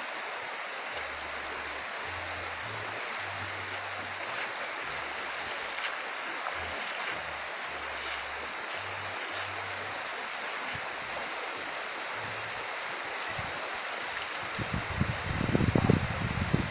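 Steady rush of a shallow river flowing over stones, with a short stretch of low rumbling near the end.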